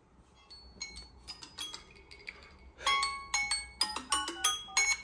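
A bright tune of quick, xylophone-like mallet notes, faint at first and much louder from about three seconds in.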